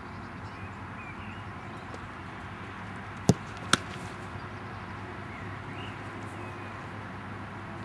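Two sharp thuds about half a second apart, about three seconds in: a football shot at the goalkeeper and the ball being stopped as he dives. A steady outdoor background runs underneath, with faint bird chirps.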